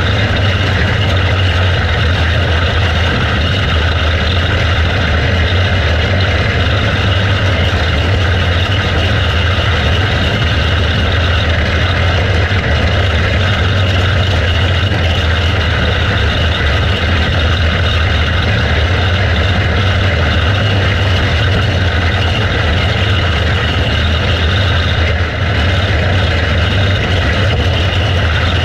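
Box stock outlaw kart's engine running hard at a steady pitch through qualifying laps on a dirt oval, heard from on board the kart.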